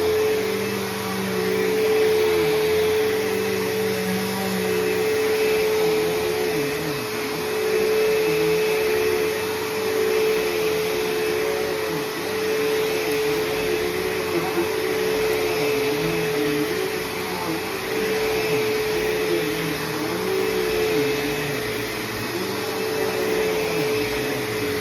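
Bissell CleanView bagless upright vacuum running with a steady motor tone over a rush of airflow. Its loudness and the lower pitches swell and ease about every two seconds.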